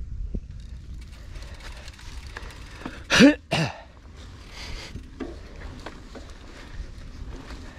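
A person coughs twice in quick succession about three seconds in, over the steady rumble and light rattle of a mountain bike rolling along a dirt trail.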